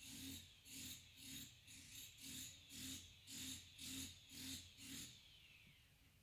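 A person with a head cold making a run of about ten quick, rhythmic rasping sounds at the nose, about two a second, stopping about five seconds in.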